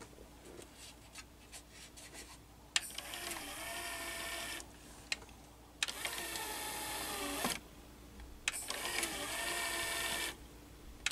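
Small motor and gear train of the Technics RS-TR170 cassette deck's motorized cassette door mechanism, running the door through its eject cycle. It whirs in three runs of about two seconds each, each started by a click, with the pitch sliding as it runs, after a few seconds of faint ticking.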